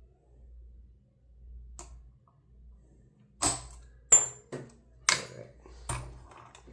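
Metallic clicks and clacks of a solid brass American Lock Series 20 padlock being picked open, five sharp ones in the second half, one with a brief high ring.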